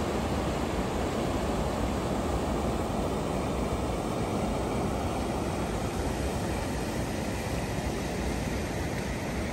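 Steady rush of water spilling over a low concrete weir, a little duller in its upper range from about four seconds in.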